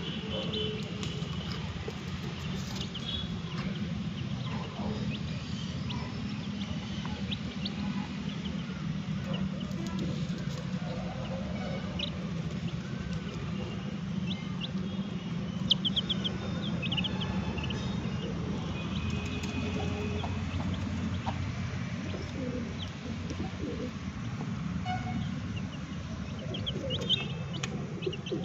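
Young chicks peeping in short, high chirps now and then while they peck at food, over a steady low hum.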